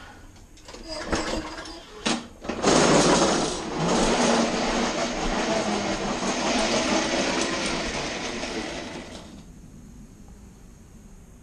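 Lawn-Boy push mower's four-stroke engine starting up and running for several seconds after a few handling knocks, then slowing and dying out about nine seconds in.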